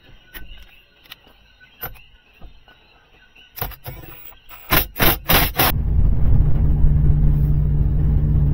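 A few light clicks and knocks, then a quick run of loud sharp noises, after which a Nissan 350Z's 3.5-litre V6 starts about six seconds in and runs on steadily.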